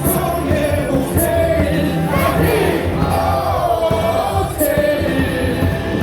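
Baseball stadium crowd singing a team cheer song together over loud amplified music.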